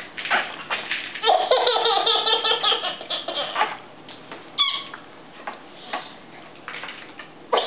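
Baby laughing hard in a run of quick, high-pitched laughs lasting about two and a half seconds, followed by a brief high squeak.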